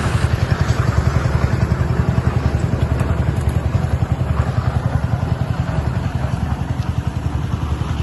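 An engine running steadily with a low, fast, even throb.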